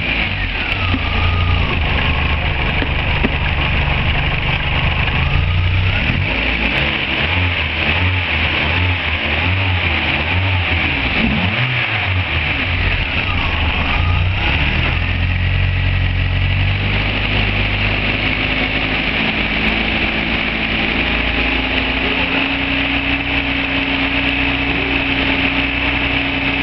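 Volvo 460's 1.7-litre B18 EP four-cylinder engine running steadily; its note wavers through the first half and settles into an even idle with a steady higher tone from about two-thirds of the way through.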